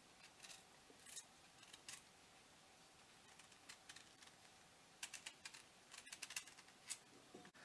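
Kitchen knife peeling a raw turnip: faint, crisp cutting strokes in short irregular runs, coming more thickly after about five seconds.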